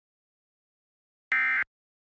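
Dead silence, then about 1.3 seconds in a DASDEC-II EAS encoder sends one short burst of SAME data tones, about a third of a second long. This is the first of the three End of Message (EOM) bursts that close an Emergency Alert System test.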